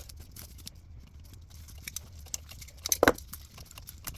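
Small scattered clicks and rustles of hands working at a car's wiring harness, opening up its wrapping, with one louder clack about three seconds in.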